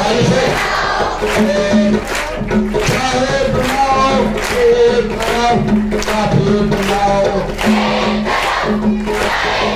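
Music with a group of voices singing a melody over a steady drumbeat of about three beats a second, with a held low tone underneath.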